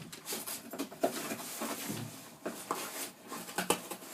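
A dog pawing and chewing at a shoe box: irregular scrapes, rustles and clicks.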